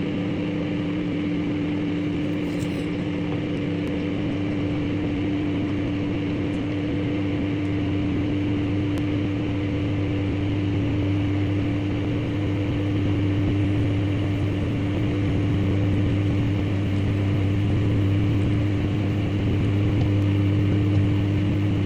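Microwave oven running: a steady hum, with a constant mid-pitched tone over a low drone.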